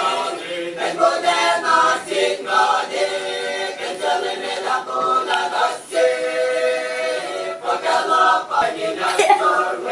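A group of men singing together in harmony, unaccompanied, holding long notes that change in steps.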